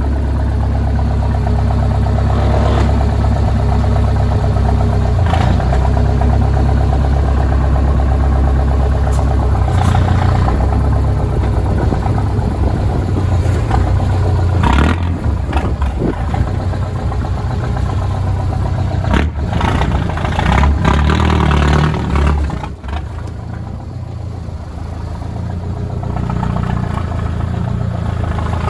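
Mercedes engine of a rebuilt GAZ-63 truck running steadily while the truck stands still, with occasional clatter; it gets quieter about three-quarters of the way through.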